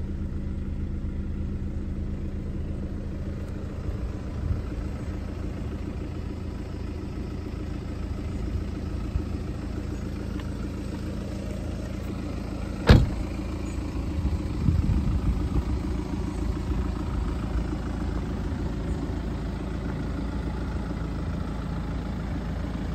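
BMW 520d's 2.0-litre four-cylinder diesel engine idling steadily. A single sharp thump about halfway through, followed by a few softer knocks.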